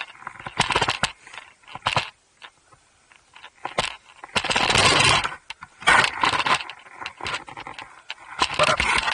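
Scraping and rustling of clothing and gloves rubbing against the 360 camera and its microphone, in irregular bursts with short clicks, loudest about halfway through and again near the end.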